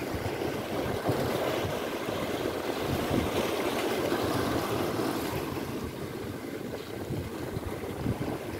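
Sea waves washing and breaking against the boulders of a rock jetty, a steady rushing surge that swells a little midway, with wind buffeting the microphone.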